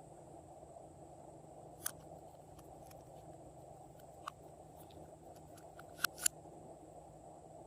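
Slime being squished and poked, with small sharp pops and clicks from the putty. The loudest pops come about two and four seconds in, then two in quick succession around six seconds, over a steady low hum.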